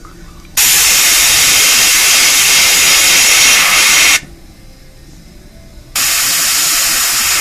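Airbrush spraying paint through a small stencil, a steady hiss of compressed air in two long trigger pulls: one of about three and a half seconds starting just after the beginning, and another starting about a second and a half later and still running at the end.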